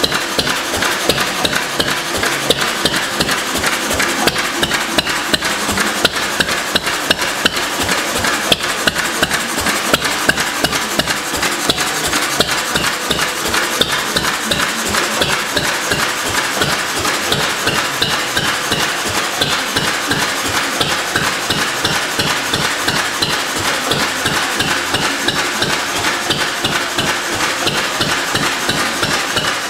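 Lister B type hopper-cooled single-cylinder stationary engine running with its heavy flywheels, a steady, rapid, even knocking beat.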